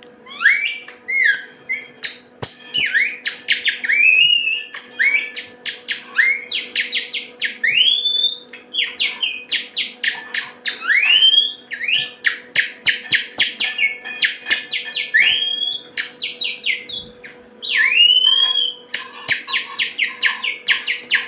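Birdlike chirping whistles played on a green onion stalk: a thin film of the onion held against the fingers and sounded by sucking air through it. Rapid trills of short chirps alternate with whistles that sweep upward in pitch, in bursts with short pauses between.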